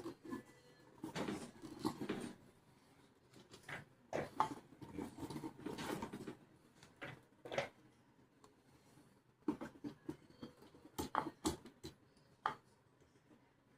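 Scattered light clicks, taps and scrapes of small pump parts and tools being handled and fitted by hand during reassembly of a pump, at irregular times with short pauses between.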